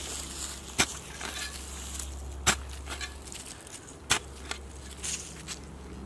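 A metal spade being driven into turf and soil, with three sharp strikes about a second and a half apart, and soil and leaves crunching between them.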